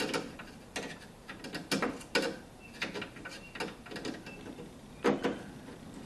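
A screw being started by hand with a screwdriver into a car's parking light and turn signal housing: a series of irregular clicks and scrapes, the loudest a little past five seconds in.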